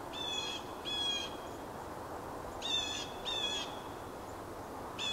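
A bird giving short calls in pairs, three pairs in all, one pair about every two and a half seconds, over a steady background hiss of open country.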